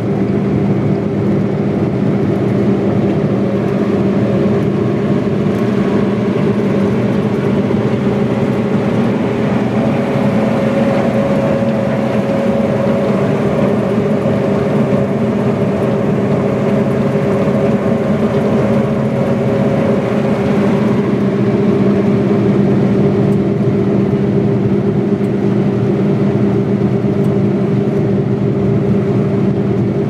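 Claas Lexion 580 combine harvester running steadily while harvesting, heard from inside its cab as an even engine and machinery drone.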